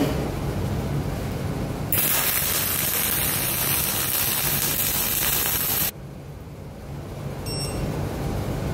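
Flux-cored wire-feed welding arc running a bead for about four seconds: a loud, steady hiss that starts and cuts off sharply. Around it, the low steady hum of the shop's fume-extraction blower.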